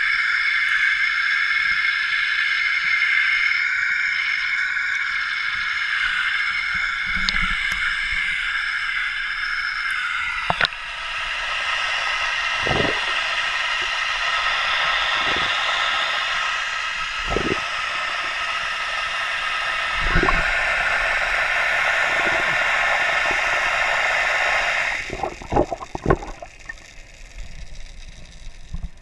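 Pool water rushing and sloshing against a waterproof action camera's housing, heard from inside the housing as it floats at the surface and then goes under. The sound changes sharply about ten seconds in, and a few dull knocks come through.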